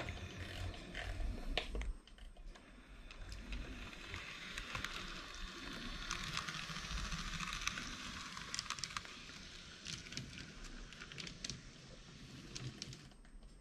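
Minitrix N-scale model of the BR 183 'Fliegender Hamburger' railcar running on model track: a rattling running hiss with scattered clicks. It is louder with a low rumble at the start, drops about two seconds in, and swells again in the middle as the train passes close by.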